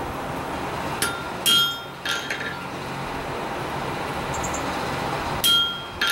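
Hammer blows on a cold chisel cutting into steel sheet on an anvil, each strike ringing metallically. Three quick blows about a second in, then a pause and one loud blow near the end, over a steady hiss.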